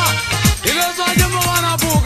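Sesotho famo music playing: steady held notes over a beat, with a deep drum whose pitch drops on each hit, roughly every three-quarters of a second.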